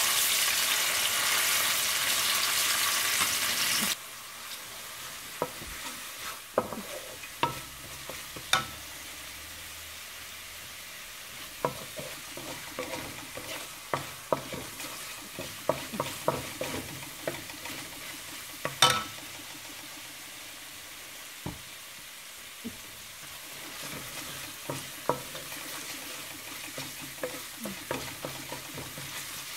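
Ginger-garlic paste frying in hot oil in a stainless steel wok, with mustard seeds in it later: a loud sizzle that drops suddenly about four seconds in to a quieter steady sizzle. A wooden spatula stirs it, and scattered sharp clicks and taps run through the quieter part.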